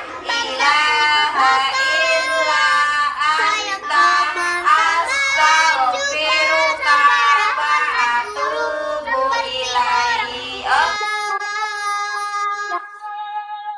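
A group of children singing a school song together. Around 11 seconds in, the singing gives way to a long held final note that fades out.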